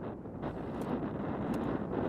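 Wind buffeting the microphone: a steady rushing roar, with a few faint ticks.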